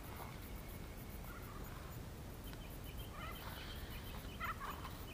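Birds calling in short chirps and warbles, busier from about three seconds in, over a low steady rumble.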